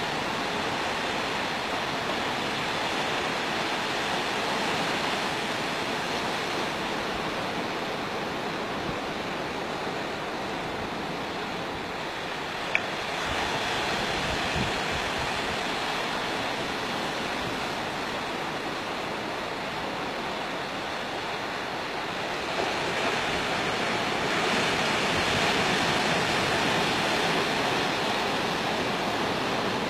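Steady rush of sea waves, growing a little louder about two-thirds of the way through, with one faint click near the middle.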